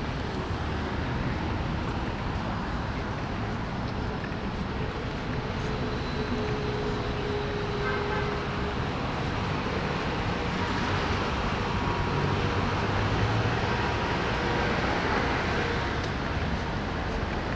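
Steady city street traffic: cars and buses running past, swelling a little in the second half.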